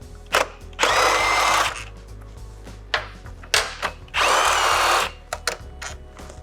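Cordless power driver with a 6mm Allen bit spinning out the front-axle pinch bolts on a motorcycle fork, twice, each run lasting about a second with a motor whine. Light clicks of tool handling come between the runs.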